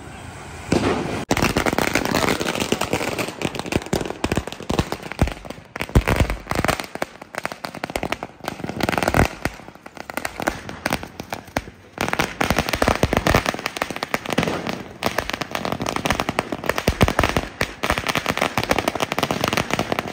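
Diwali firecrackers going off in fast, dense volleys of sharp cracks and bangs, starting about a second in, easing briefly around the middle, then coming thick again.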